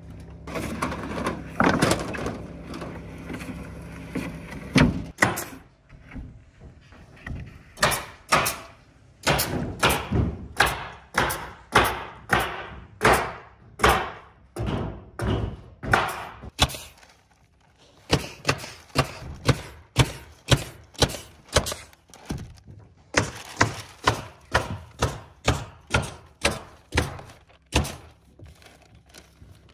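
Pneumatic nail gun driving nails through OSB roof sheathing into wooden rafters: sharp shots fired in quick runs, about one or two a second, with a short break about two-thirds of the way through.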